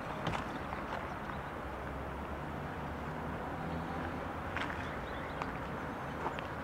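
Footsteps on asphalt, a few scattered scuffs and clicks, over a steady outdoor background noise.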